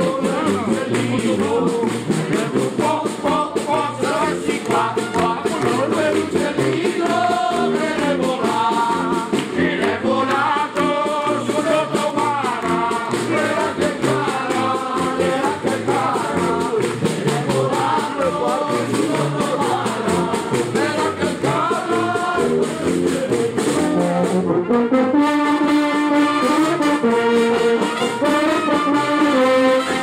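Street band of trumpets, clarinets and a tuba playing a lively tune together. The ensemble grows fuller and louder about 25 seconds in.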